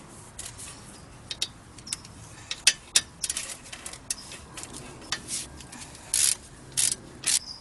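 Socket ratchet clicking while tightening the 14 mm caliper bolts on a brake caliper: irregular clicks, with a few longer runs of ratcheting in the second half.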